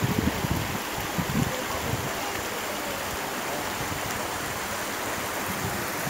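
Shallow mountain stream rushing over stones, a steady wash of water noise, with a few low rumbles in the first second and a half.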